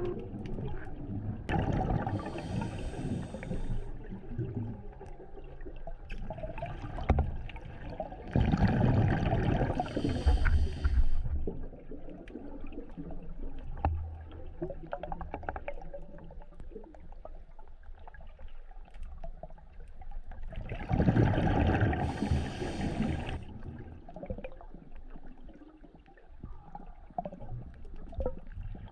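A scuba diver's exhaled breath bubbling out of the regulator underwater, in three long bursts: near the start, about nine seconds in and about twenty-one seconds in. A low gurgling underwater background lies between them.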